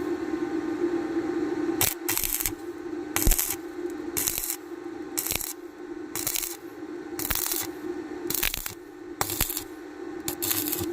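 Electric arc welding on a round pipe: the arc crackles in short bursts about once a second over a steady electrical hum.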